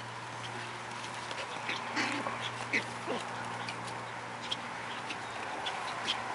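Chihuahua puppies at rough play, giving a few faint short yips and growls about two to three seconds in, over a steady low hum.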